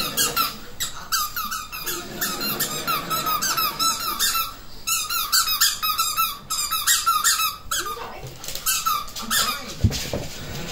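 Squeaky dog toy squeaking over and over as an English bulldog puppy chews it, in quick runs of short squeaks broken by brief pauses, with a soft thump near the end.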